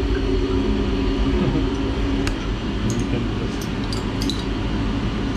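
Steady low machine hum inside a CNC mill's enclosure, with a few light metallic clicks and clinks from about two seconds in as machined aluminium parts are lifted off the fixture.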